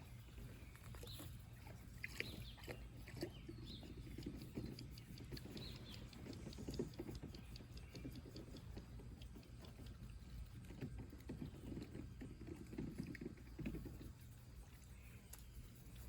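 Faint, scattered low calls from a backyard flock of domestic ducks and geese, with small birds chirping now and then, mostly in the first few seconds.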